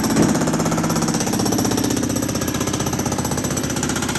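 Jackhammer breaking up concrete, hammering steadily with rapid, even blows, with one slightly louder hit about a quarter second in.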